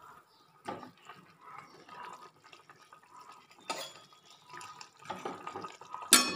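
Spiced fish gravy bubbling in a kadai as fried koi fish are dropped in, with small splashes and scattered ticks. A loud knock of a spatula against the pan comes near the end.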